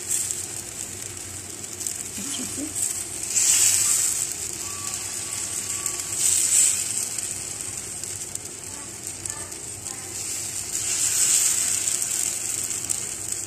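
Raw-potato paratha batter sizzling on a hot pan as the back of a cup spreads it into a round, the hiss swelling and fading every few seconds.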